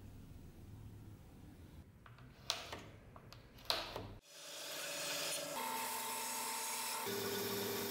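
A few light clicks from handling measuring and marking tools, then about four seconds in a benchtop band saw runs and cuts a small wooden block: a steady high hiss with a steady tone that shifts lower about seven seconds in.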